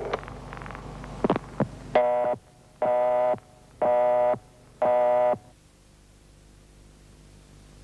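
A few sharp clicks, then four identical buzzing electronic tones, each about half a second long with half-second gaps between them, in the on-off rhythm of a telephone busy signal; a faint low hum remains after them.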